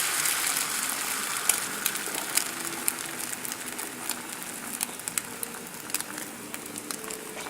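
Beaten eggs with ham and mushrooms sizzling in hot butter and olive oil in a frying pan over a high flame: a steady hiss with many small crackling pops, slowly quietening.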